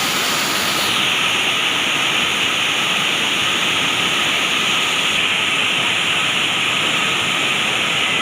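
Waterfall rushing over rocks, a loud, steady, unbroken noise of falling water.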